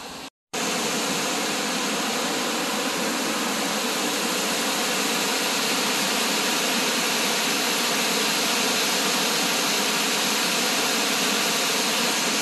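Blakiston Falls waterfall rushing, a steady, unbroken roar of falling water heard close by. The sound drops out for a moment about half a second in, then comes back louder.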